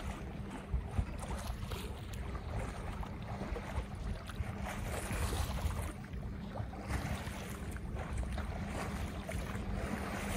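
Water rushing and splashing along the hull of a Beneteau First 36.7 sailboat moving under sail, with wind buffeting the microphone.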